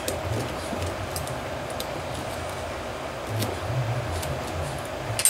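Faint, sparse metallic clicks of a hex key working the cylinder-head screws of an Enya 46-4C model four-stroke glow engine, over a steady low hum.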